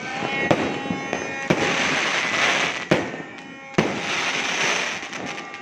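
New Year's fireworks going off over continuous crackling, with four sharp bangs about a second apart.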